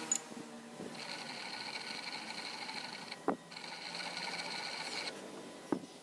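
Steady high whine of a running workshop machine, broken off three times, each break marked by a sharp click.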